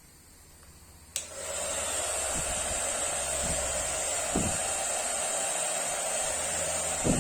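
Taiff hair dryer switched on with a click about a second in, then running steadily with a high whine over a rush of air. Its motor bearing newly replaced, it runs in a way the owner judges perfect, without noise or vibration. A few soft knocks sound under it.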